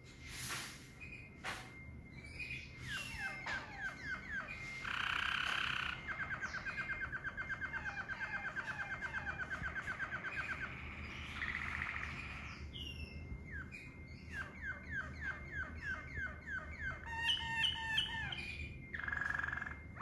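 Male Waterslager canary singing a long, continuous song. Its phrases are series of short down-slurred notes and rapid rolling trills, the longest of them running for about four seconds.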